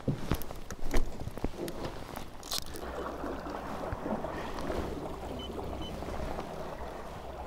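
A few sharp knocks and clicks, then a steady low rush of wind and water noise around a small boat on a lake.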